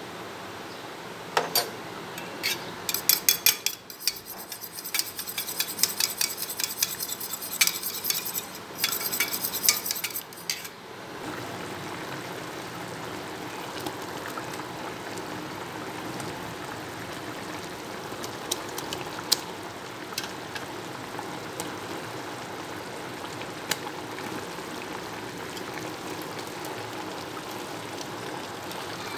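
A metal spoon clinking and scraping against a small steel bowl, stirring a spice mixture in quick strokes for about ten seconds. Then a pot of chicken and potatoes cooks with a steady sizzle.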